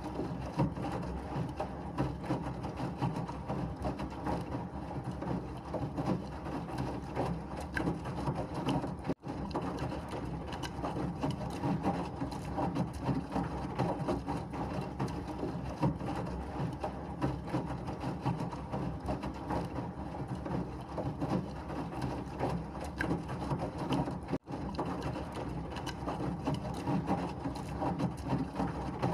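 Washing machine running with a steady churning, rattling noise, broken by two very brief dropouts about 9 and 24 seconds in.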